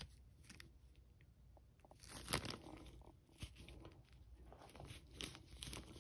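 Thin plastic zip-top bag crinkling faintly in a hand, with scattered crackles, the sharpest about two seconds in.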